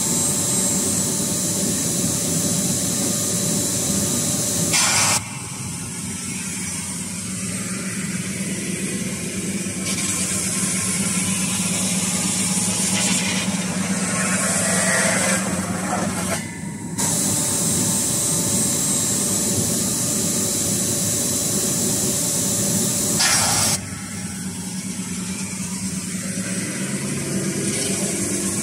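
CNC metal spinning machine forming a sheet-metal fan impeller shroud: a steady low hum from the running spindle, with a high hiss that comes in stretches of several seconds and cuts off suddenly between them.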